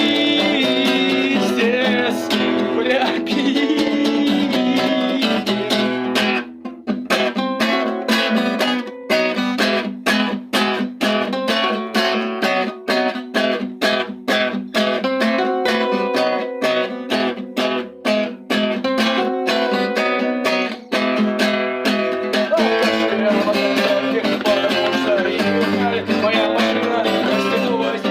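Acoustic guitar strumming chords without singing. About six seconds in the playing turns to short, separate choppy strums, about two a second, and returns to continuous strumming near the end.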